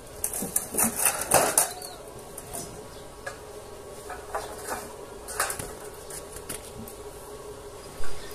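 Sheet-metal roofing and steel purlins being handled: sharp metallic clinks and clatter, a quick cluster in the first two seconds and then a few scattered ones, over a faint steady hum. A short loud burst comes near the end.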